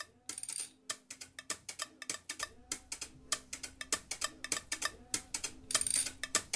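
Quiet, fast clock-like ticking clicks in a music soundtrack, over faint low held notes.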